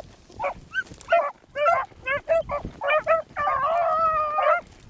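Pack of beagles baying as they run a rabbit's scent line: a string of short choppy barks from several hounds, then one long drawn-out bawl about three and a half seconds in.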